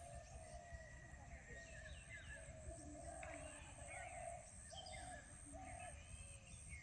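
Faint outdoor ambience with small birds chirping on and off over a low steady rumble.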